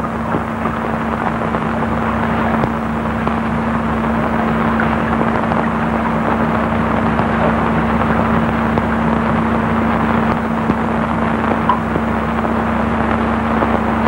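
Steady rushing noise with a constant low hum underneath, growing slightly louder. This is typical of the noise of an old film soundtrack; no speech or music is heard.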